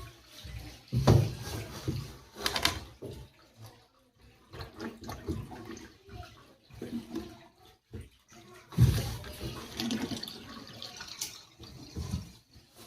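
Water splashing and sloshing in irregular bursts as a hand works inside the flooded spin-dryer tub of an LG semi-automatic washing machine, pulling out clothing stuck in the drain outlet. The water is trapped because socks blocked the outlet.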